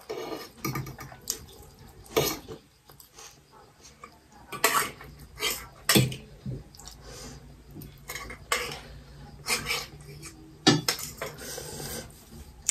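Forks and spoons clinking and scraping against metal plates during eating, in irregular short clinks and scrapes.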